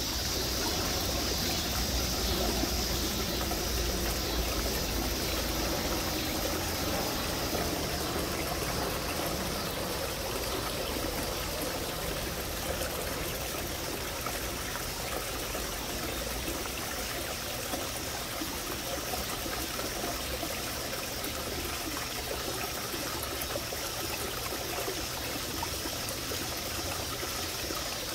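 Water trickling steadily into a backyard garden pond, a constant running-water sound without pauses.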